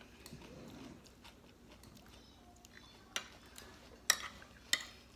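Fork and spoon clinking against a plate of salad: a few sharp separate clinks in the second half, between quieter sounds of chewing crunchy turnip salad.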